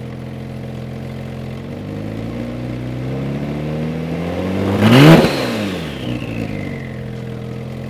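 Porsche 911 Turbo S (996) twin-turbo 3.6-litre flat-six idling through a Soul Performance near-straight-pipe exhaust, then revved once. The revs climb slowly, then sharply to a peak about five seconds in, and drop quickly back to idle.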